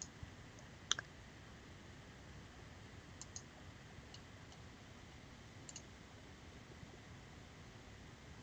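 A few faint computer mouse clicks: the loudest about a second in, a quick pair a little past three seconds and another pair near six seconds, over a low hiss.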